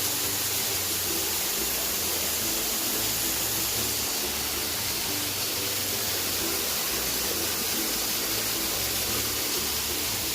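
Steady rushing of water from a large indoor waterfall, an even hiss that does not change.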